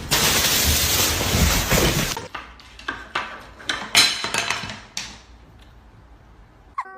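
About two seconds of loud rushing noise, then a scatter of sharp clinks and knocks over the next few seconds, and near the end a short, falling cat meow.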